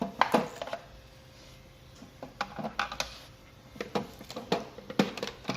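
Light, irregular clicks and knocks of a Makita 18 V battery pack's plastic case being handled while its packaging is taken off.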